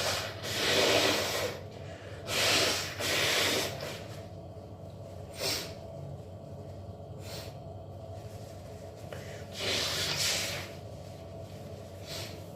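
A person blowing their nose hard and wetly several times, each blow a noisy rush lasting about a second, with a cluster in the first four seconds and another around ten seconds in. Briefer nasal bursts come between the blows.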